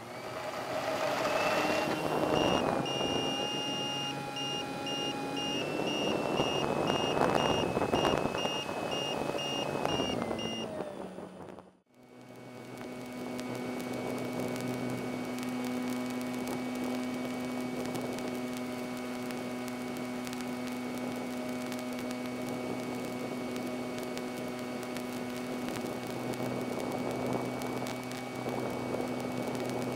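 Electric motor and propeller of a Slow Stick RC plane. The whine rises as the motor spins up, holds with a high beep repeating over it, then falls away about ten seconds in. After a sudden break it settles into a steady drone at about 7,500 RPM in cruising flight.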